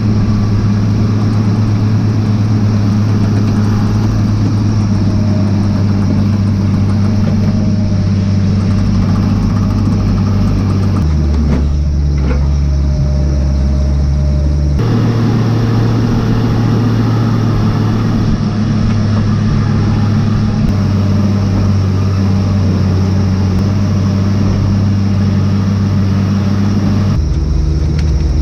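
Diesel engine of a log skidder running steadily, its pitch dropping and coming back up a couple of times as the engine speed changes.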